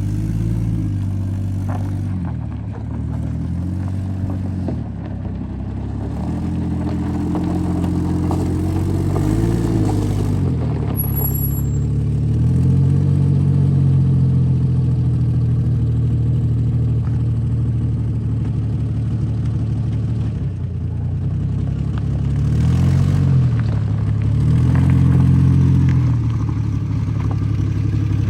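Lifted Jeep's engine working off-road, revving up and easing off again and again so its pitch rises and falls several times.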